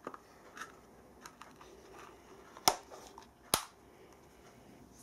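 Small clicks of hands handling a dial test indicator's hinged case, then two sharp clicks a little under a second apart as the case is closed and latched.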